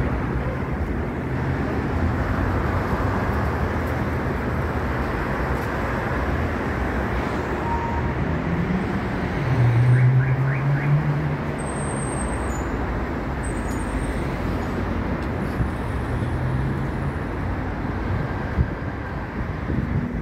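City road traffic: a steady wash of passing cars with engines humming. About halfway through, one vehicle's engine rises in pitch and grows louder as it passes close, then fades back into the traffic.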